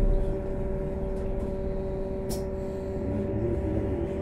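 Trolleybus interior: a steady hum with two held tones over a low rumble, with a short hiss about two seconds in.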